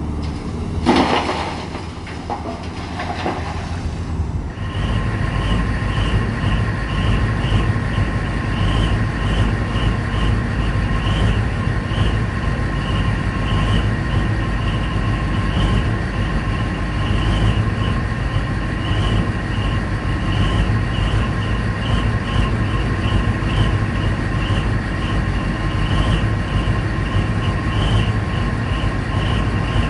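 A bucketload of rock crashes into a steel dump-truck bed about a second in, with rubble rattling after it. Then heavy mining machinery runs steadily with a deep diesel drone, a steady whine, and a high tone that pulses about two to three times a second.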